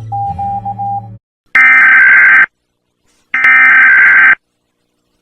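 Emergency alert alarm tone: a rapid pulsing beep over low steady tones cuts off about a second in. Then a harsh, loud electronic buzzer sounds in one-second blasts, two of them, with a third starting at the end.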